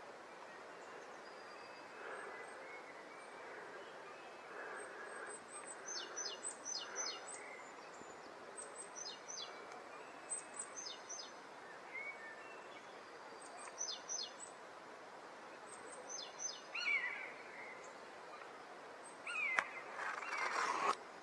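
A small songbird singing in woodland: short phrases of three or four quick high notes falling in pitch, repeated every couple of seconds, over a steady outdoor hiss. Near the end a louder rustle and a sharp click.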